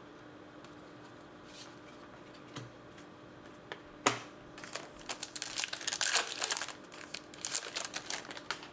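Crinkling of a foil trading-card pack wrapper being handled and torn open, a dense run of quick rustles through the second half after a single sharp click about four seconds in.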